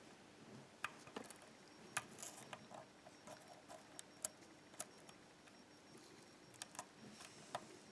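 Faint, irregular clicks and ticks of a half-diamond pick working the pin stacks of an ASSA pin-tumbler cylinder under light tension, during single-pin picking.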